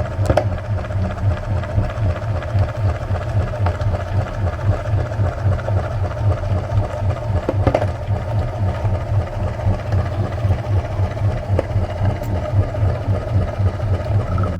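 Electric meat grinder's motor running steadily with a fast, even pulsing rattle, grinding jelly ice creams, with a couple of sharp clicks.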